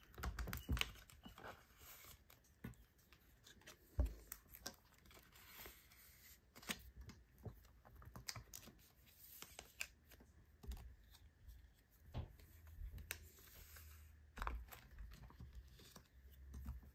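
Clear plastic binder pages rustling and crinkling as photocards are slid into and out of their pockets, with scattered soft clicks and a sharper knock about four seconds in.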